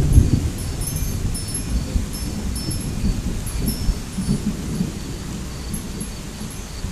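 Wind chimes tinkling irregularly with short, high notes in storm wind, over a low, uneven rumble that is loudest at the start and eases off.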